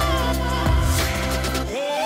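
Background music: a pop-style song with a steady beat and strong bass; the bass drops out briefly near the end.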